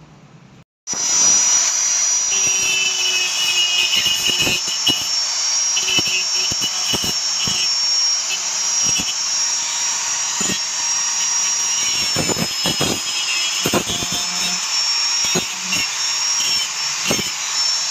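Electric angle grinder running steadily at speed with a high whine, starting about a second in. Its abrasive disc grinds down the stapled crack in a plastic car bumper, with short rasps each time it touches the surface.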